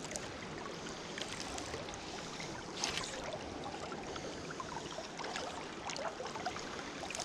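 Steady rush of a flowing river, with a few brief faint noises over it, the clearest about three seconds in.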